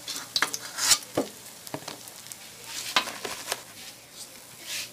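Hot oil sizzling as squash fritters fry in a pan, broken by repeated sharp clicks and scrapes of a metal ladle against the pan as the fritters are lifted out.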